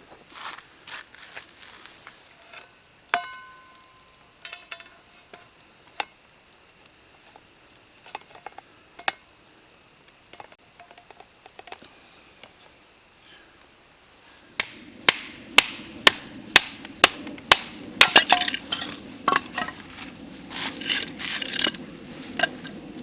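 Metal camp cookware and utensils clinking as they are handled, one piece ringing briefly about three seconds in. From about fifteen seconds in comes a run of sharp knocks, about two a second, followed by denser clattering.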